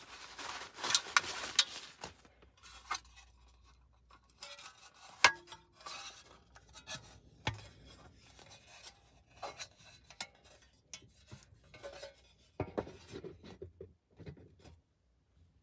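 Small items being handled and set down: scattered clicks, clinks and knocks, with a rustling scrape in the first couple of seconds.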